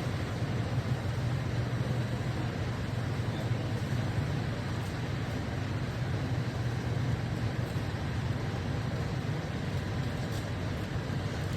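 Steady low hum with a light hiss, unchanging throughout, with a few faint ticks.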